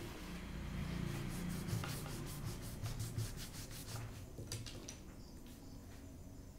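Sheets of paper handled on a tabletop, then a quick run of rubbing strokes on paper, several a second, with a few scattered strokes after about four seconds and quieter rubbing after that.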